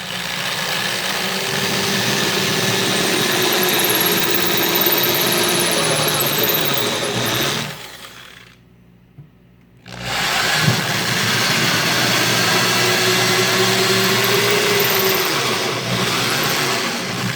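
Power drill with a 3/16-inch bit running at speed as it bores two screw holes through a kitchen cabinet door, one hole after the other: two long, steady runs of about seven and a half seconds each, with a pause of about two seconds between them.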